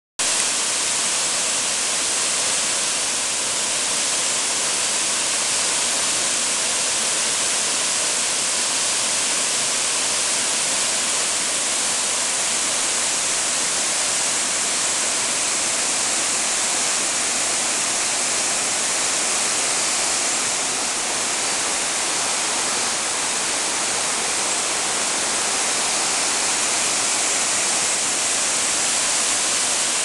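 Waterfall spilling down a broad, sloping rock face into a pool: a steady, even rush of falling water.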